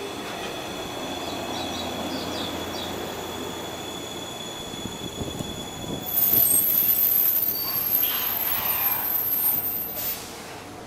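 Limited express train pulling into the station platform with its running noise. About six seconds in, a loud high-pitched brake squeal starts suddenly and cuts off about four seconds later as the train draws to a halt.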